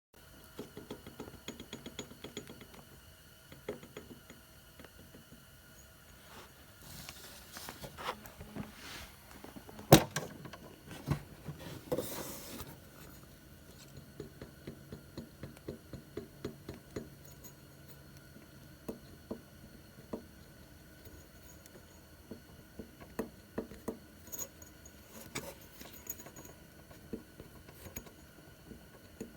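Scattered small clinks, taps and knocks of objects being handled, with one sharper knock about ten seconds in.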